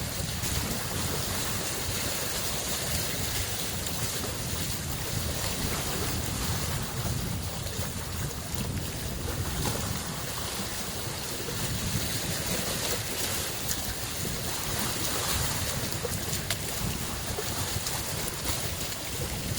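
Small lake waves washing steadily against the shore, a continuous rushing wash with a low rumble of wind on the microphone.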